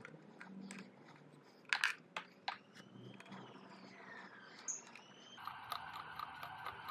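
Faint rustling and a few sharp clicks of hands working plastic wiring connectors while disconnecting an electric dirt bike's motor phase wires, the clicks coming about two seconds in. Near the end a distant siren comes in.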